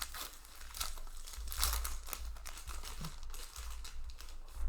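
Foil Magic: The Gathering booster pack wrappers crinkling and being torn, with trading cards handled, in a string of short, irregular rustles.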